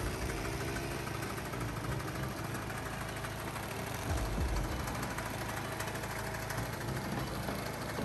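Homemade sickle bar mower built on a John Deere LA115 lawn tractor running steadily: a small engine hum overlaid with the rapid, even clatter of the reciprocating cutter bar.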